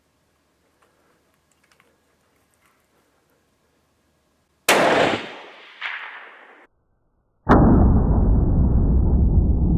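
A single .300 WSM rifle shot about five seconds in: a sharp crack, with the report echoing back about a second later, then cut off short. Near the end comes another sharp crack, followed by a loud, steady rushing noise.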